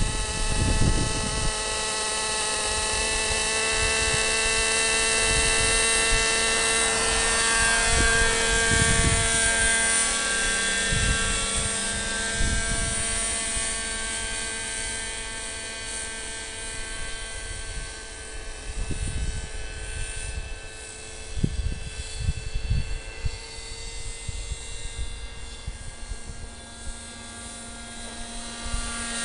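Radio-controlled model helicopter's motor and rotor whining steadily as it lifts off and flies, fading noticeably about two-thirds of the way in as it moves away. Scattered low thumps, likely wind buffeting the microphone.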